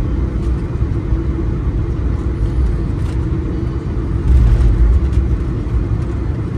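Cabin noise of a Boeing 737-900 rolling on the runway after landing: a steady low rumble with a steady hum. The rumble gets louder for about half a second a little after four seconds in, with a few faint knocks.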